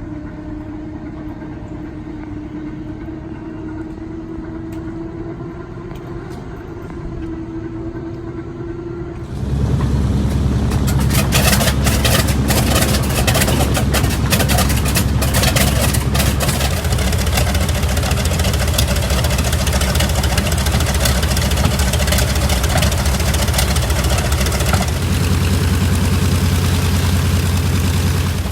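Grumman TBM Avenger's Wright R-2600 radial engine being started: a whine rises slowly in pitch for about nine seconds, then the engine catches and runs loud. It is ragged for the first several seconds, then settles into steady running, with a small change in engine speed near the end.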